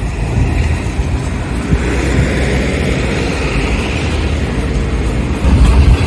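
Car driving through town traffic, heard from inside the cabin: a steady low rumble of engine and road noise that grows louder near the end.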